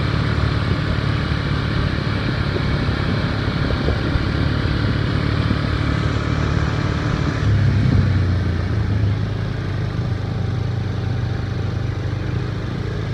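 Engine of a moving vehicle running steadily: a low rumble that grows louder about seven and a half seconds in and then settles back.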